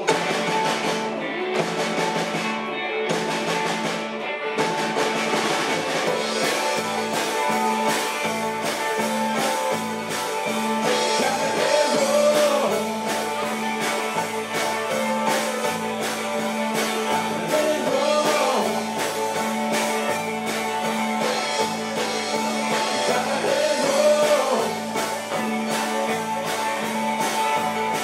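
Live country band playing a song, with singing, guitars, a moving bass line and a steady beat.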